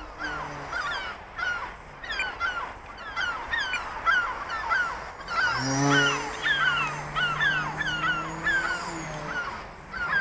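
A flock of gulls calling over and over: short, falling cries repeated several times a second. Under them a low steady hum glides up in pitch about six seconds in and holds for a few seconds.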